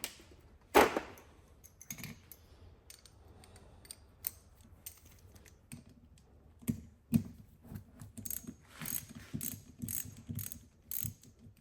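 Ratchet wrench clicking in short strokes as it loosens a 3/8 fastener on a Zenith 63 updraft carburetor, with a sharp metal clack about a second in and a quicker run of clicks near the end.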